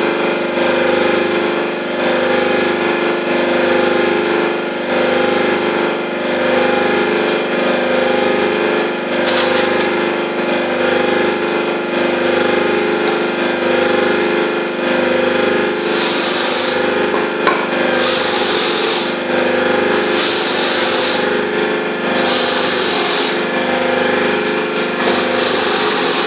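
A worm gearbox driven by an electric motor runs with a steady hum that pulses about once a second. About two-thirds of the way in, short hissing bursts join it, about every two seconds.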